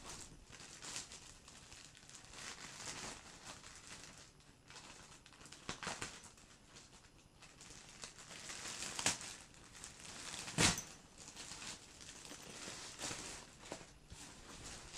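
Thin clear plastic bag crinkling and rustling as it is pulled off a fabric backpack, with two sharper crackles a little past the middle, the second the loudest.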